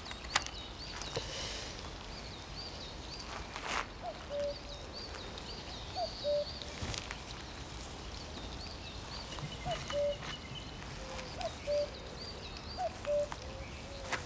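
Birds calling in the open air: runs of quick, high, repeated chirps, and from about four seconds in a lower short two-part call every second or two. A few soft clicks and rustles come from pebbles on gravelly ground being handled.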